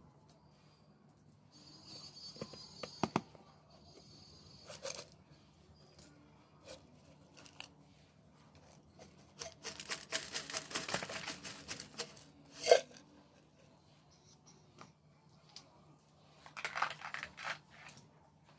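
Pringles packaging being handled and torn open: intermittent tearing and crinkling, a longer stretch of rustling about ten seconds in, and one sharp click near thirteen seconds.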